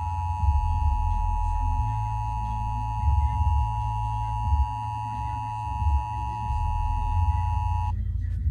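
Emergency Alert System attention signal: the steady two-tone 853 Hz and 960 Hz alert tone, held for about eight seconds and then cutting off suddenly near the end, over a low rumble. It marks the start of an EAS test broadcast.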